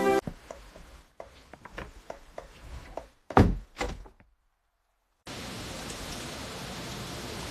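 Scattered light taps and knocks, with two louder thumps about three and a half seconds in. After a second of silence, steady rain starts about five seconds in.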